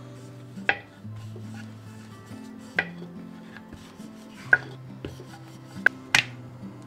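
Five sharp knocks and clinks of kitchen utensils against cookware, the last two close together, over soft background music.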